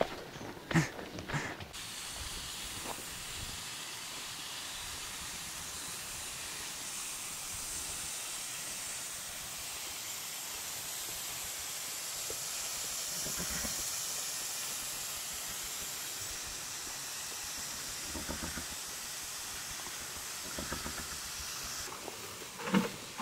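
Steady, even hissing noise, strongest in the high range. It starts abruptly about two seconds in and cuts off shortly before the end.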